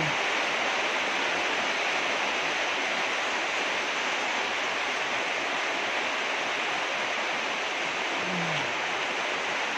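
Steady rain, an even hiss with no breaks. A short hummed "mm" sounds near the end.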